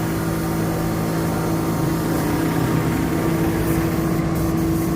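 A motor or engine running steadily, giving a constant hum with a low drone underneath.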